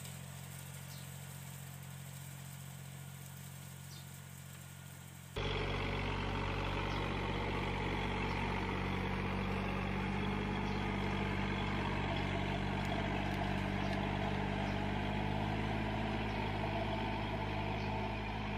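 Small tractor engine running steadily under load, first behind a rotary tiller. About five seconds in it switches abruptly to a louder tractor engine: a John Deere compact diesel tractor pulling a five-disc plough, a heavy load for so small a tractor.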